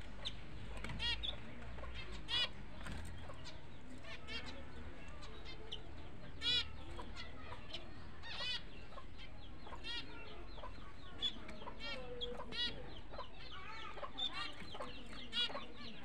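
Budgerigar giving short, sharp chirps, one every second or two, over a steady low background hum.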